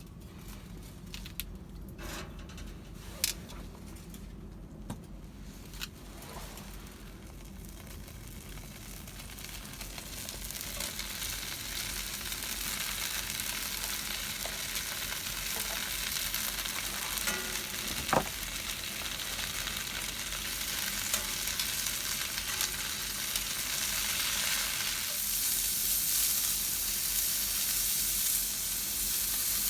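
Chicken sizzling as it cooks over a campfire, the hiss growing steadily louder from about a quarter of the way in. A few sharp clicks sound in the first several seconds, and one knock comes a little past halfway.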